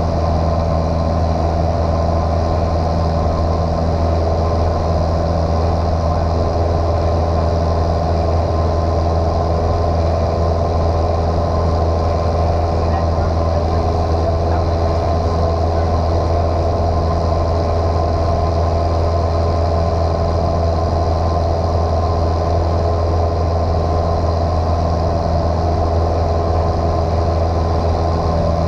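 Cockpit drone of a light aircraft's piston engine and propeller running at a steady power setting, with a loud, unchanging low hum.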